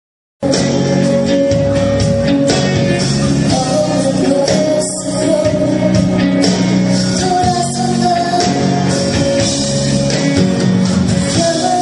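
A live pop ballad: a woman singing with band accompaniment that includes guitar. The sound cuts in after a short gap of silence about half a second in.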